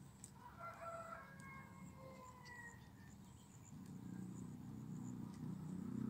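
Faint rooster crowing: one long call about half a second to three seconds in, falling slightly in pitch at its end. A low rumble builds over the last two seconds.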